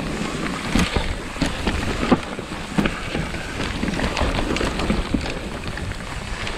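Mountain bike descending a dirt singletrack at speed: tyres rolling over the dirt, with frequent sharp knocks and rattles from the bike over bumps, and wind rushing over the microphone.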